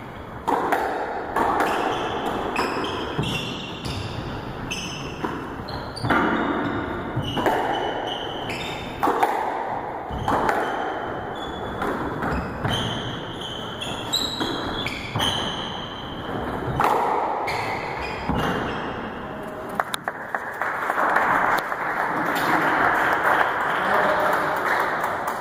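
Squash rally: the rubber ball smacking off the walls and racquets in quick, irregular strikes, with players' court shoes squeaking on the wooden floor. Near the end the strikes stop and a steadier noise takes over.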